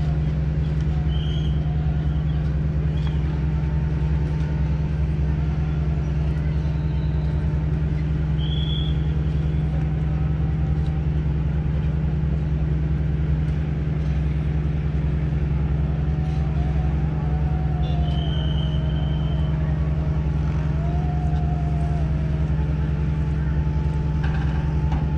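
Steady low drone of a moored ship's engine running at an even speed, with a few short high chirps now and then.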